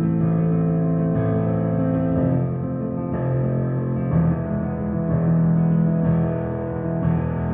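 Piano playing a minor-key chord progression (i–i–♭VI–V) in 12/8, with the chords changing every second or so over sustained low notes.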